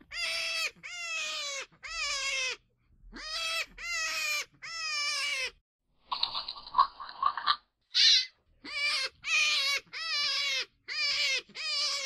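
Hare crying: about a dozen high, wailing calls in quick runs, each under a second and dropping in pitch at the end, with one harsher, raspy cry about six seconds in.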